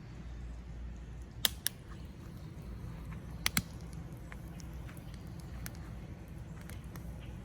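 Wood campfire crackling: two pairs of sharp pops about two seconds apart, with fainter scattered ticks over a steady low rumble.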